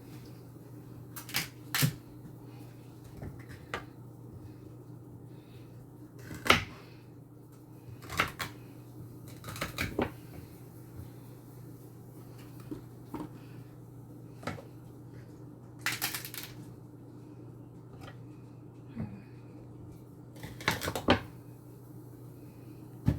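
Irregular knocks and clicks of vegetable prep: a knife tapping on a cutting board and pieces and dishes being set down, a dozen or so spread out with short clusters, over a steady low hum.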